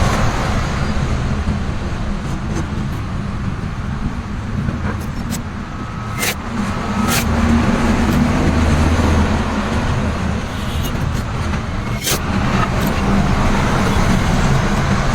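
A steady low mechanical rumble, like engine or traffic noise, with a few sharp clicks or taps: one about six seconds in, another a second later, and one near twelve seconds.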